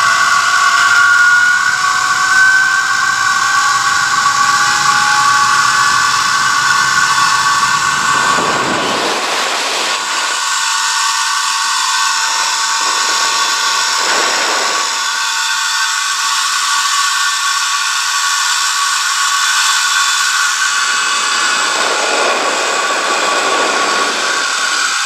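Zip-line trolley pulleys running along the steel cable: a loud, steady high-pitched metallic whine, with a faint tone rising in pitch over the first few seconds as the rider picks up speed. Gusts of wind rush across the microphone three times.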